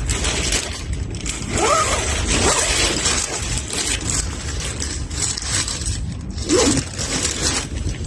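Gusty force 6–7 wind buffeting a small tent, the fabric rustling and rattling in waves, with a few brief whistles about two seconds in and again near the end.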